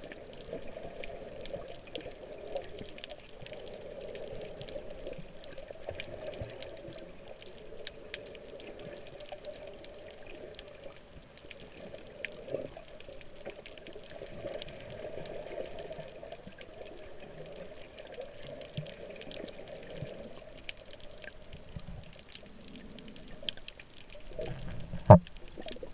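Underwater sound heard through an action camera's waterproof housing: a steady, muffled wash of water with faint scattered crackling clicks, and one sharp knock near the end.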